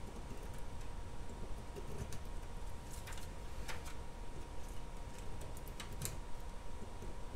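Scattered light clicks and taps from hands handling a resin printer's metal FEP vat frame and its film, over a steady low background hum.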